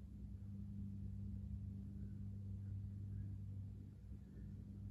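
Quiet room tone with a steady low hum, and faint soft puffs as a tobacco pipe is smoked.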